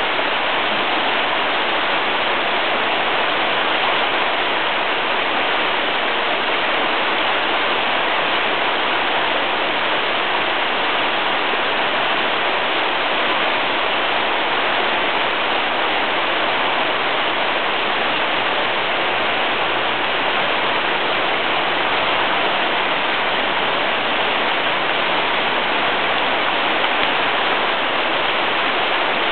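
Steady rushing of running water, an even hiss that does not change.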